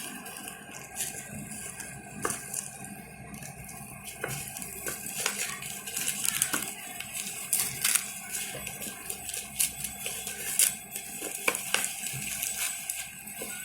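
Irregular clicks, taps and rattles of an unboxing: small plastic parts and packaging being handled as the earphones are taken out of the box.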